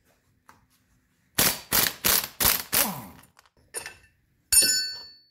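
An impact wrench is run in five quick bursts on the nut of a threaded-rod bushing puller. A little later a metal part is set down with one sharp clank that rings on for a moment.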